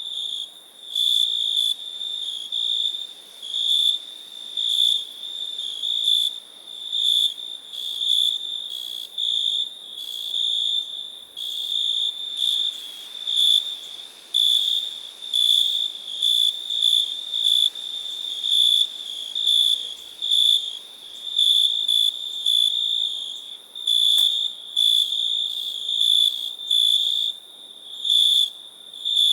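Cricket chirping: a high, steady-pitched trill in bursts of varying length, roughly one a second.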